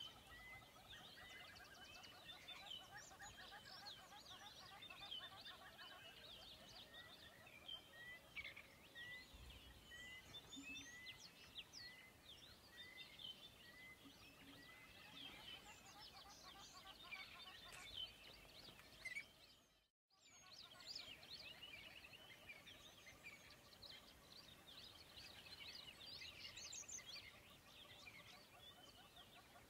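Faint chorus of many birds chirping and singing. One bird repeats a short note about one and a half times a second through the first half. The sound cuts out for a moment about twenty seconds in.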